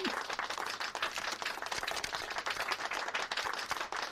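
A crowd applauding: many hands clapping in a dense, even patter.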